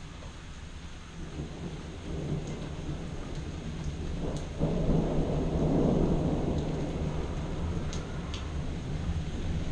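Thunder rumbling over steady rain. The rumble builds about two seconds in, jumps suddenly louder near the middle, then slowly eases off.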